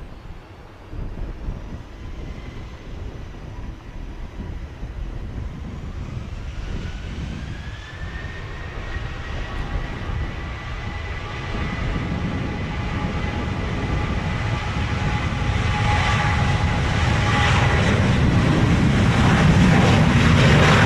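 Southwest Boeing 737-800's CFM56-7B turbofan engines spooling up for the takeoff roll. A whine rises in pitch about a third of the way in and then holds steady, while the engine roar grows steadily louder as the jet accelerates down the runway past the listener.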